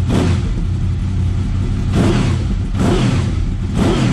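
Honda VFR800 VTEC V4 engine idling with the throttle blipped about four times, each blip a quick rise and fall in revs. It revs up cleanly with no hesitation and no cam chain rattle, with freshly fitted cam chain tensioners.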